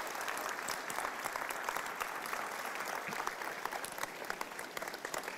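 Church congregation applauding steadily, easing off a little near the end.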